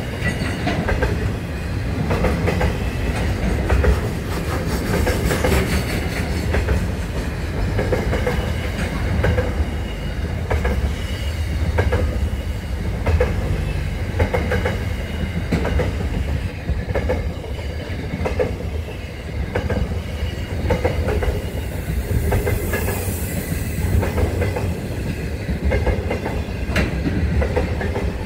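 Container freight train's wagons rolling past at speed: a steady low rumble with repeated clacks from the wheels on the track.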